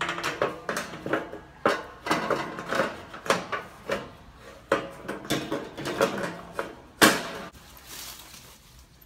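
Corrugated metal hurricane shutter panels clattering, ringing and scraping as they are slid into place over a window. There is a run of knocks, one to two a second, and one loud bang about seven seconds in.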